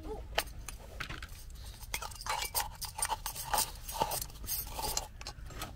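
Crinkling, scratching and light clicks as a can of baking powder is opened by hand: the lid pulled off and the foil seal over the opening scratched and torn with a fingertip.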